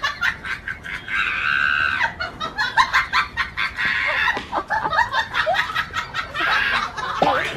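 Chickens squawking and clucking in agitation, stirred up by a dog at the gate: several drawn-out squawks with quick, sharp clucks in between.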